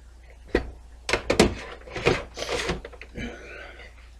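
A run of knocks, clicks and rattles of cables and parts being handled inside a desktop computer case while the drive cables are connected, with a cluster of quick knocks about a second in and a short rustle near the end.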